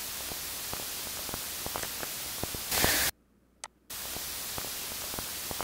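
Steady recording hiss with scattered faint clicks. About three seconds in it swells briefly, then drops out to silence for under a second, broken by a single tick, and comes back before cutting off at the end.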